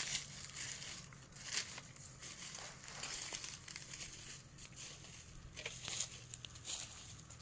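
Footsteps crunching and rustling through dry leaf litter and grass, an irregular series of crackling rustles.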